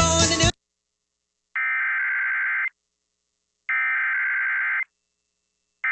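Emergency Alert System digital header: buzzy, modem-like data tones in bursts about a second long, each followed by a second of silence. Two full bursts sound and a third starts at the very end, marking the start of a new weather alert. A snatch of music cuts off about half a second in.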